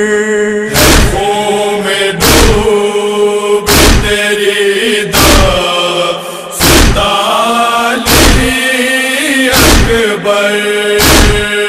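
Noha chant: sustained voices held on long notes over heavy rhythmic thuds of matam, hands striking the chest, about one every one and a half seconds.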